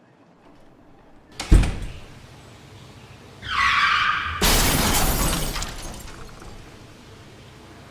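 A sharp thump, then about two seconds later a car's tyres squealing for about a second, cut off by a loud crash with shattering glass that fades over a second or so: a car skidding and crashing.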